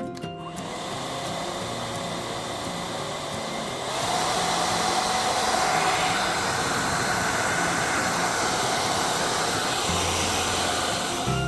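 JMW hair dryer with a high-speed motor running: a steady rush of air with a faint whine. About four seconds in it gets louder and the whine rises to a higher pitch and holds.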